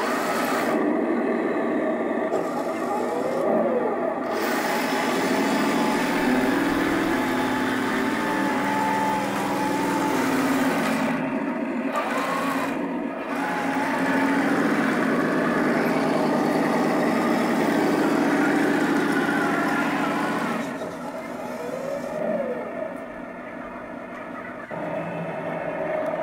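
Heng Long Leopard 2 RC tank's sound unit playing its simulated tank-engine sound, mixed with the whine of its electric drive motors and gearboxes as it drives over grass; the engine note steps up and down in pitch with the throttle. Near the end the sound drops back to a quieter idle as the tank stops.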